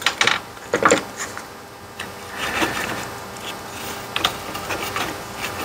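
Toothbrush bristles scrubbing a circuit board to clean off solder flux: a steady, rough rubbing that starts a couple of seconds in, after a few light handling clicks about a second in.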